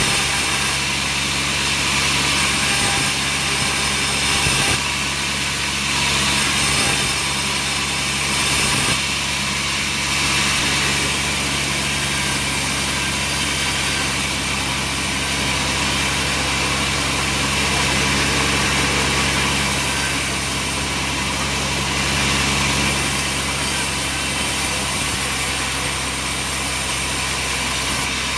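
Sawmill machinery running steadily: a constant motor hum under an even hiss, with no distinct cutting strokes or impacts.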